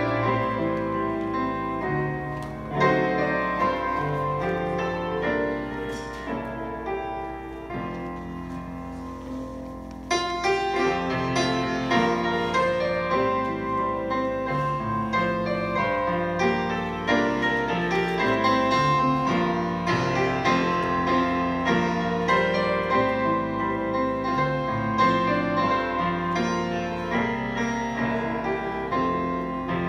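Grand piano playing a hymn medley in full sustained chords. It fades to a softer passage over several seconds, then comes back in louder about ten seconds in.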